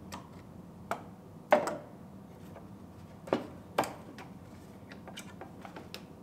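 Hand tools and metal parts clinking and knocking as the horns and hood latch are unbolted from a car's front end: scattered light ticks and four sharper knocks, the loudest about a second and a half in, over a low steady hum.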